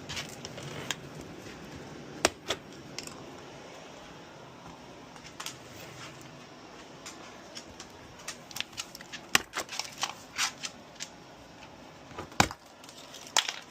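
A cardboard shipping box and its packaging being handled and opened by hand: scattered taps, clicks and scrapes, with a few sharp knocks, the loudest about two, nine and twelve seconds in.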